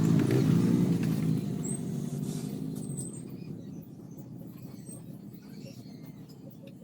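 A motor's hum winding down and fading over the first couple of seconds, leaving a faint low rumble.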